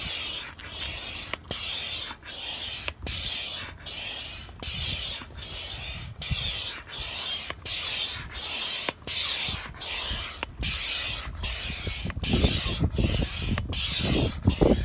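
Itiwit 5.2-litre double-action hand pump inflating an inflatable kayak: a steady run of air-rushing hisses, one per stroke, about 1.3 strokes a second, with a brief break at each turn of the handle. A low rumble joins in over the last few seconds.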